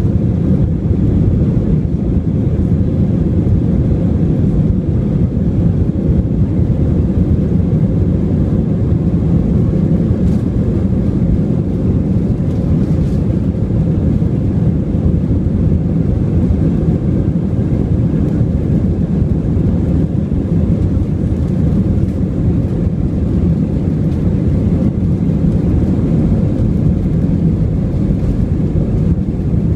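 Steady, loud rumble of a jet airliner heard from inside the passenger cabin, engine and airflow noise with no rise or fall in pitch.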